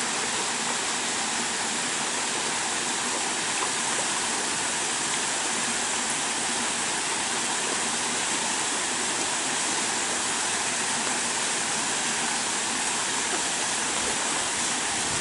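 Steady rush of running water, even and unbroken, like a small waterfall feeding the pond.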